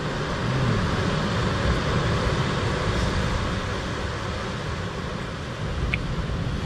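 Wind rumbling across the microphone over the steady wash of sea surf breaking on rocks.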